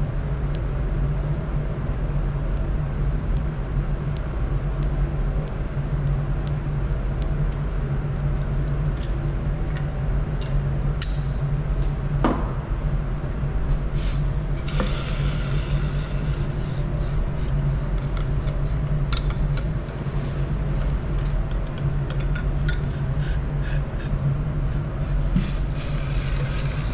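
A glass cold trap is worked free of its clamp and lifted out of a stainless-steel Dewar flask. Light clicks and glass-on-metal handling noises are heard, and from about halfway in there are scraping and rustling sounds. A steady low hum runs underneath.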